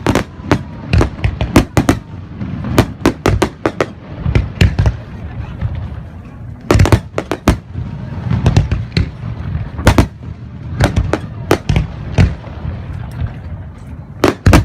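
Aerial fireworks going off in quick, irregular volleys: sharp bangs, at times several a second, over a continuous low rumble of further bursts.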